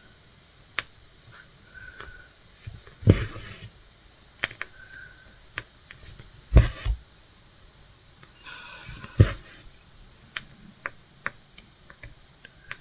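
Cross-stitch handwork: light irregular clicks and taps of the needle working through fabric, with the thread drawn through in soft swishes and a few louder knocks, about three, six and a half and nine seconds in.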